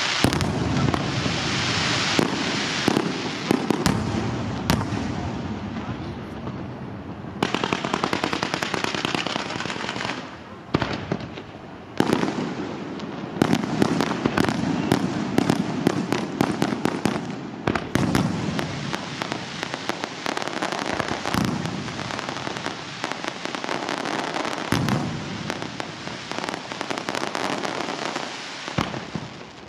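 Aerial fireworks display: a dense, unbroken barrage of crackling and sharp bangs, with a few brief lulls.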